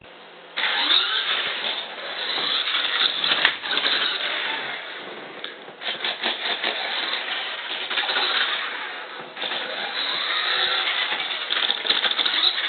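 Small electric drive motors and gearing of a homemade Arduino-controlled RC car whirring as it drives, starting about half a second in. The pitch rises and falls, with brief breaks near six and nine seconds.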